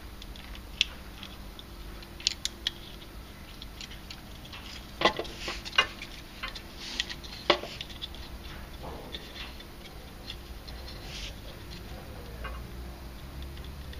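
Small clicks and fiddly handling noises of wires being pushed into the plastic terminal tabs on the back of a hot tub circulation pump, with scattered sharp clicks, the loudest about halfway through.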